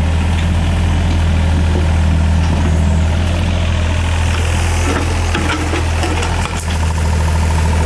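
Excavator engine running steadily at idle, a constant deep hum, with a few light knocks about five to seven seconds in.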